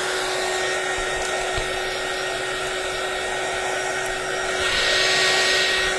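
Handheld craft heat gun running steadily, blowing hot air to dry sticky, glue-damp decoupage napkin pieces. The hiss grows brighter and a little louder for about a second near the end.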